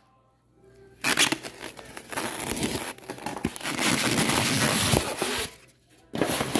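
Packing of a disposable vaccine shipping cooler and its ice packs being handled, with crinkling and tearing noises starting about a second in and a brief break near the end.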